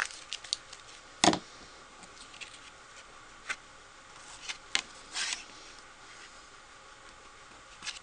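Cardstock and a liquid glue bottle handled on a tabletop: a few short taps and knocks, the loudest about a second in, with light paper sliding.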